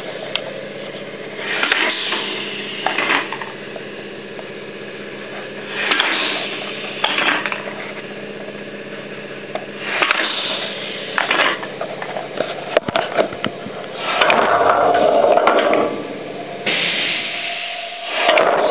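Homemade air-powered can crusher cycling on its own about every four seconds: each cycle is a burst of air hiss, often followed by a second, as the pneumatic cylinder strokes and exhausts, with sharp clanks of aluminium cans being crushed and dropping from the hopper. A steady machine hum runs underneath.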